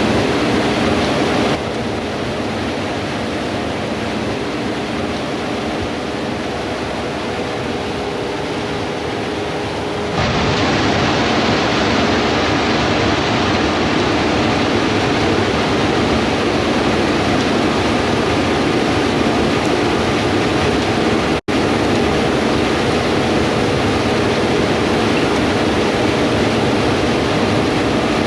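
Steady rushing wind noise over a low, even hum of combine harvester engines. The sound shifts at edits about 2 and 10 seconds in and drops out for an instant about 21 seconds in.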